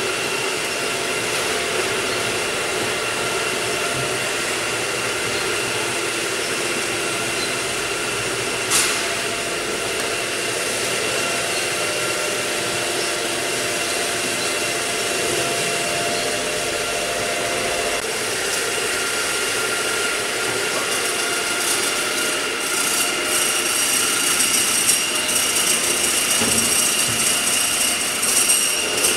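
Steady hum and whine of an electric motor-driven machine running, with one sharp click about nine seconds in. From a little past twenty seconds, a sack rustles and scrapes over it.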